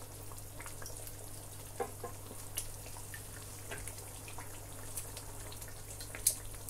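Thick egusi soup simmering in a pot, its bubbles giving scattered soft pops and plops over a steady low hum. A sharper click comes near the end.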